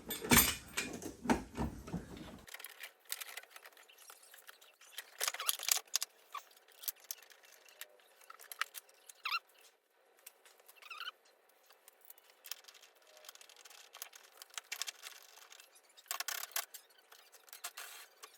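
Hands and tools fitting parts in a car's engine bay: scattered small clicks, taps and scrapes of metal and plastic, loudest in the first couple of seconds, with a couple of short squeaks.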